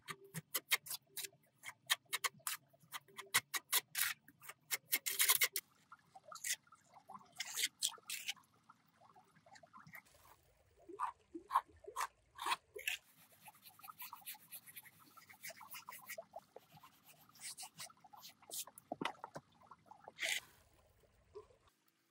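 Irregular sharp clicks, taps and short scrapes of small hand work on miniature building materials, some coming in quick runs, with a faint low hum through the first half.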